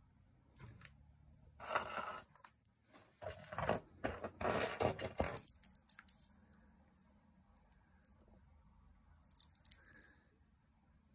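A small metal fish-shaped folding knife on a keyring being picked up and handled: scraping, rubbing handling sounds in a few bursts in the first half, then a brief cluster of light metallic clicks near the end.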